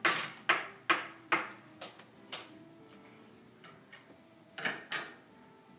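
A toddler banging a hard toy on a small children's table: a run of sharp knocks, about two a second, that stops after about two and a half seconds, then two more knocks near the end, each with a short ring.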